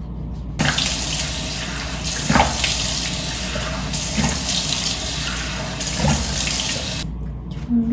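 Bathroom sink tap running, with water splashing as a face is rinsed at the basin. The water comes on about half a second in and is shut off abruptly near the end.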